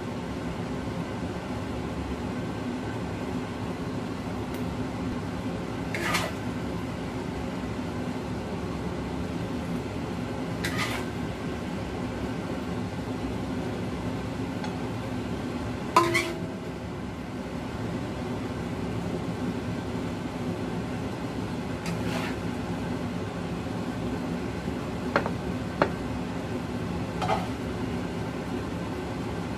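A serving utensil clinking against a ceramic plate as pieces of food are set on it: about seven separate light clinks, the loudest about halfway through. A steady low hum runs underneath.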